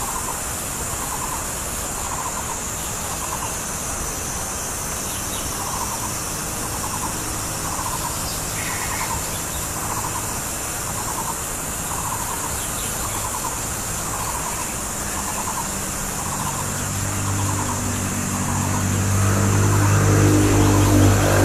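Masked laughingthrush (Hongkong poksay) giving short, rough call notes about once a second, over a steady high hiss. A motor vehicle engine grows louder from about three quarters of the way in and becomes the loudest sound near the end.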